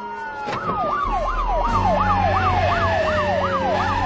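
Police car sirens: one yelping, sweeping up and down about three times a second, while another slides down in one long falling wail.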